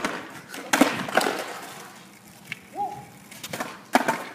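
Skateboards clacking and slapping on asphalt as they are kicked, flipped and land, with several sharp hits about a second in and again near the end, and the rolling and scraping of the boards between them.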